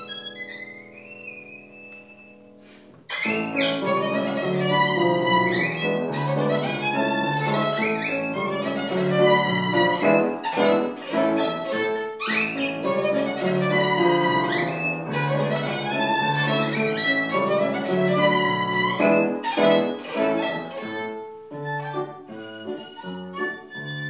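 Violin and piano duo playing a lively piece. The violin plays a few soft, wavering slides alone, then the piano comes in loudly about three seconds in. The violin's quick upward swoops and slides over the piano's rhythmic chords imitate a canary.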